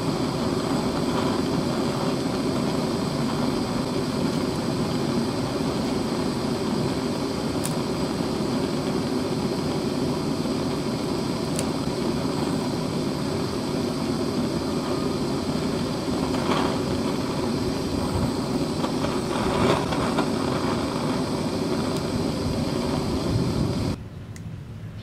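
Handheld gas torch flame running with a steady rushing noise, with a few brief crackles from burning matches; the sound drops away sharply about a second before the end.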